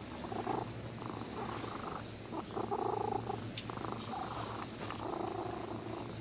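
Domestic cat purring in repeated swells while being stroked, purring with pleasure.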